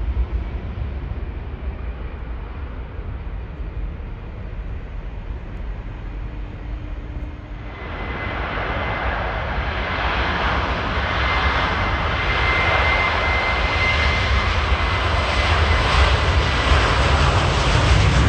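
Low rumble at first. About eight seconds in, the rushing noise of a jet airliner's engines sets in and grows louder as the Finnair narrow-body jet comes closer, with a steady high whine for a few seconds in the middle.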